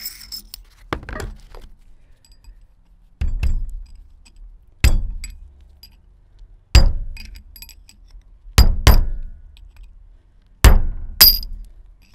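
About eight mallet blows, some in quick pairs, each with a short metallic clink, driving a torch-heated thrust washer down onto a VW 02C transmission output shaft until it seats.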